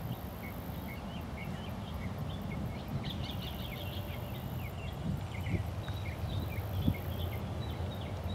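Distant low rumble of a departing Boeing 737-800's CFM56-7B jet engines as it climbs away, with many short, high bird chirps over it and a brief low thump near the end.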